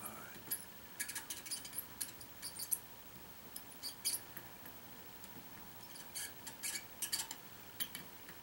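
Solder flux crackling and spitting in short, irregular bursts of clicks as a soldering iron melts solder on a circuit-board pad, while desoldering a blown capacitor.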